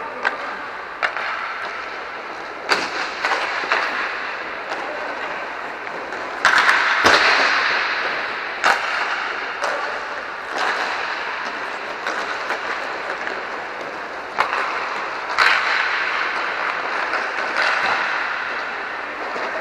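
Inline hockey play: irregular sharp cracks of sticks hitting pucks and pucks striking the boards, over a steady rolling hiss of skate wheels on the rink floor, echoing in a large domed hall.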